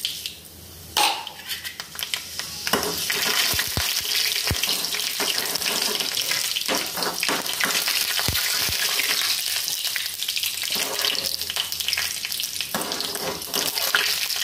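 Mustard and fenugreek seeds sizzling in hot oil in an aluminium kadai while a spoon stirs and scrapes them around the pan: the tempering (seasoning) stage of the curry. The sizzle builds about three seconds in and carries on steadily.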